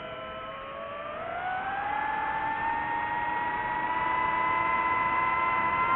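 DJI FPV quadcopter's motors and propellers whining, the pitch climbing about a second in as the throttle comes up and then holding high.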